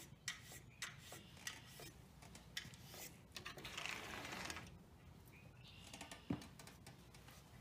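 A cat chattering: irregular quick clicks with a few faint chirps, the call a cat makes while watching prey it cannot reach. One sharper click comes about six seconds in.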